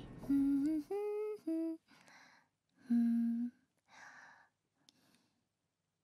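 A woman humming a short tune to herself: three quick held notes in the first two seconds and another longer note about three seconds in, with softer breathy sounds between, then silence near the end.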